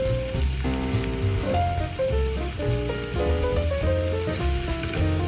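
Beef sizzling as it fries in oil in the pot with the sautéed aromatics, a steady hiss, under background music with a changing melody and a pulsing bass.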